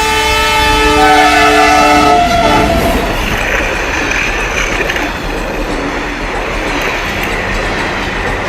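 Train horn sounding a chord of several notes for the first two and a half seconds, then the steady rumble and clatter of a train running.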